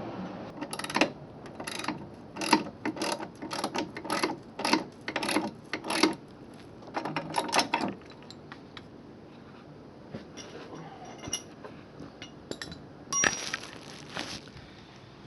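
A ratchet wrench clicking in a run of short strokes, driving in the top mounting screws of a truck side step. Sparser clicks and a single knock follow in the second half.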